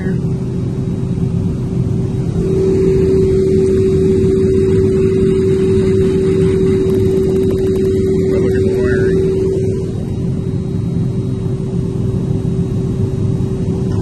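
Hand-cranked megohmmeter whining steadily as it is cranked to test the insulation of a cooling-tower fan motor and its wiring. It is loud from about two seconds in to near ten seconds, then drops away. Underneath runs a steady low machinery rumble.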